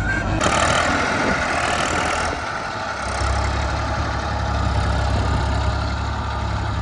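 Heavy diesel engine of earth-moving machinery running steadily at low revs. For about two seconds near the start, a rushing noise sits over it.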